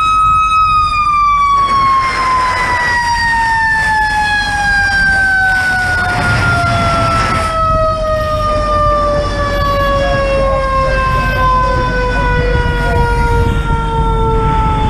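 Mechanical fire-truck siren winding down: it holds one high note for about half a second, then its pitch falls slowly and steadily. A steady low rumble runs underneath, with two short stretches of hiss.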